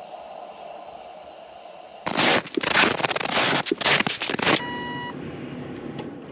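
Boots crunching through deep, very cold snow: a run of loud, irregular steps lasting about two and a half seconds, followed about a second later by a short electronic beep.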